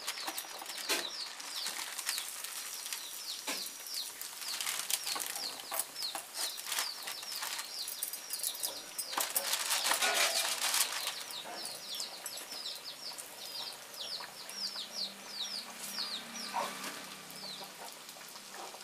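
A plastic sheet crinkling and rustling as hands press out dough on it. Throughout, a bird chirps a rapid series of short, falling high notes.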